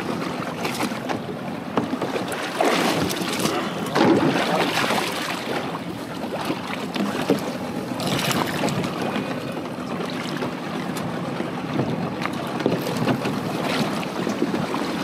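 Wind buffeting the microphone and choppy sea water slapping against a kayak and a boat's hull, with a few sharp knocks and bumps as fishing rods and gear are handed up and hauled aboard.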